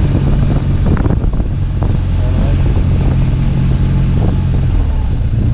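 BMW R1200GS flat-twin (boxer) engine running steadily as the motorcycle rides along, with wind rushing over a helmet-mounted camera's microphone.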